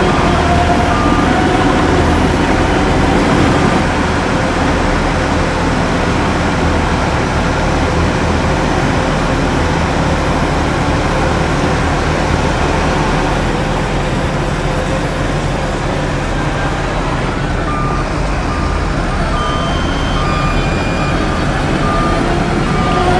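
Heavy diesel earthmoving machinery running steadily under load, with a reversing alarm beeping about twice a second at the very start and again through the last five seconds or so.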